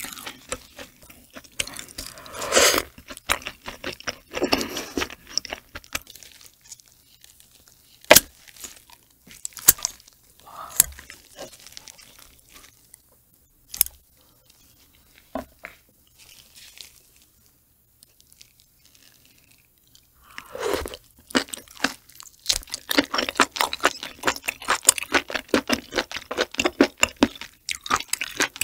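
Close-miked mukbang eating sounds of octopus eggs and boiled giant octopus: crackly, sticky chewing and handling noises. These come in clusters at the start and densely near the end, with a few single sharp clicks in the middle where a blade cuts through a tentacle.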